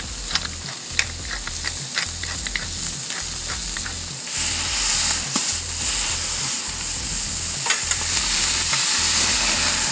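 Balls of 80/20 ground beef sizzling and crackling on hot aluminium grill grates over charcoal. The sizzle grows louder about four seconds in, as the beef is smashed flat with a spatula.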